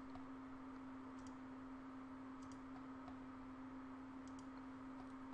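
A few faint computer mouse clicks, spaced a second or more apart, over a steady low electrical hum and hiss.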